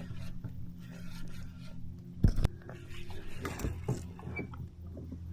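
Scraping and rubbing handling noise from a kayak angler fighting a hooked redfish, with a steady low hum underneath. One loud knock comes about two seconds in.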